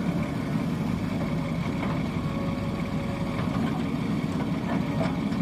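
Heavy diesel engine running steadily at a low, even drone, with a few faint clicks over it.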